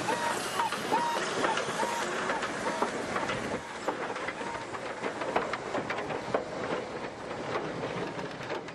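Steam locomotive and its tender rolling slowly past at trackside: wheels clicking over the rails, with short high squeaks repeating about three times a second for the first few seconds. The sound fades near the end as the engine moves away.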